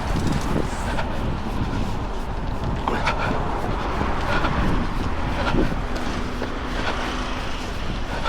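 Wind rumbling on the microphone of a small body-worn camera during a run, with road traffic going by and scattered sharp knocks. A low steady engine hum sets in about six seconds in.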